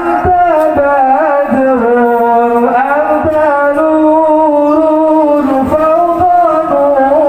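A man singing sholawat, Arabic devotional praise of the Prophet, through a microphone and PA, in long held notes with wavering ornaments.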